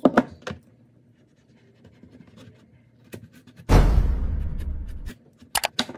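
A subscribe-button overlay's sound effects: a loud splashy whoosh lasting about a second and a half from a little past the middle, then a few quick mouse-click effects near the end. A few light kitchen handling clicks come at the start.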